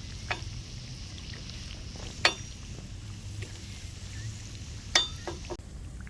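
Sharp metal clinks of a utensil against a deep-frying pan: one just after the start, the loudest about two seconds in, and a quick run of three around the five-second mark. Beneath them is a faint steady hiss of egg cake pieces frying gently in hot oil on low heat, which drops away shortly before the end.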